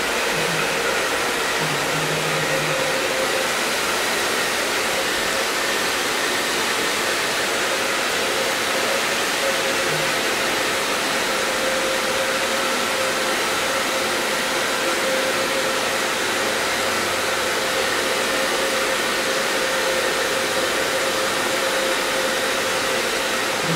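Handheld electric hair dryer running steadily, a constant rush of blown air with a steady motor whine, as it blows dry a monkey's fur.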